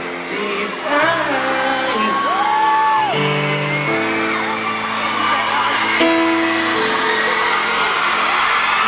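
Live concert music, held chords that change every second or so, with an audience screaming and whooping over it.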